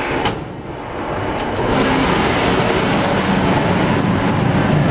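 A sharp click near the start, then the air shower pass box's blowers running with a steady rushing noise that dips briefly and builds back up within about two seconds.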